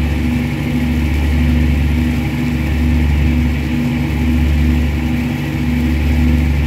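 Boat engine running steadily, a low drone that swells and dips every couple of seconds.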